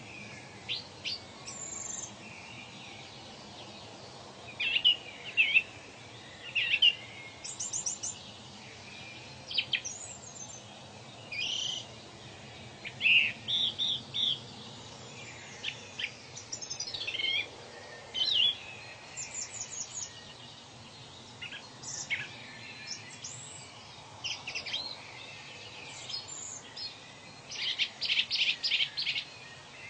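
Several birds chirping and calling in short, varied high phrases, with a quick run of rapidly repeated notes near the end, over a faint steady hiss.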